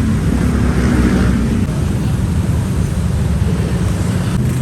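Road traffic: a steady, loud, low rumble of vehicle engines.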